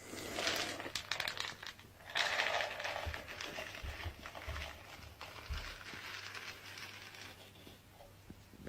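Rustling, crinkling noise in uneven bursts with scattered clicks, loudest from about two to three seconds in, then fading.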